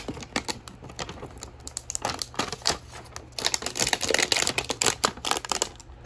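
Plastic shrink wrap crinkling and crackling as it is worked loose and peeled off a cardboard trading-card box: rapid irregular clicks, sparser at first and louder, denser crumpling from about halfway through.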